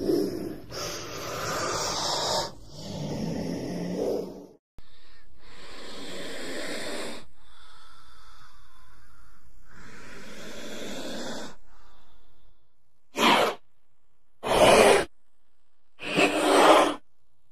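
King cobra hissing: a run of long, breathy hisses, then three short, sharper and louder hisses near the end.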